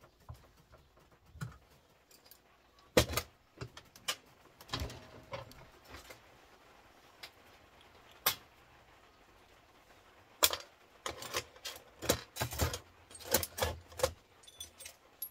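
Small metal and plastic scrap parts being handled and set down on a workbench: scattered clicks, clinks and knocks, with a busier run of clatter in the last few seconds.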